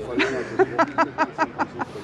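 A man laughing: a quick run of short ha-ha bursts, about six a second, starting about half a second in.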